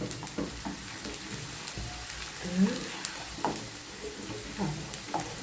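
Onions, garlic and spices frying in oil in a pan, sizzling steadily, with scattered clicks of a spoon stirring them. The onions are starting to caramelize.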